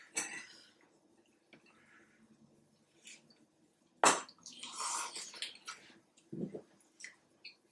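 Close mouth sounds of eating hotpot with chopsticks: scattered small wet clicks and smacks of chewing, then a sharp click about four seconds in followed by a noisy slurp of hot food lasting about a second and a half.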